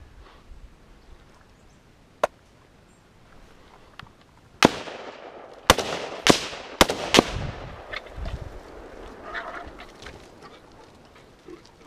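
Hunting gun fired five times in quick succession over about two and a half seconds, each shot a sharp crack with a short echo. One sharp click sounds about two seconds before the shots.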